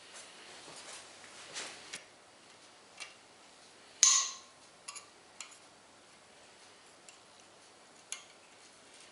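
Scattered metallic clinks and taps of engine parts and tools being handled. A rustling scrape comes in the first two seconds, and the loudest clink, about four seconds in, rings on briefly.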